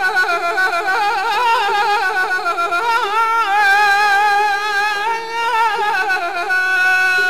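Azerbaijani ashiq song: a man's voice draws out a long wordless melisma full of quick trills and turns, ending on a held note, over saz accompaniment.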